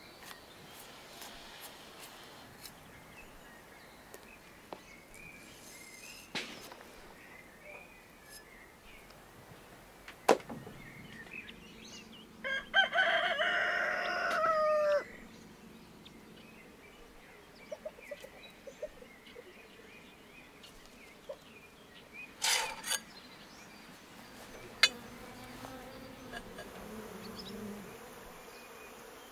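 A rooster crows once, about halfway through: a single call of about two and a half seconds that ends in a falling note. A few short, sharp calls and clicks come before and after it over a faint outdoor background.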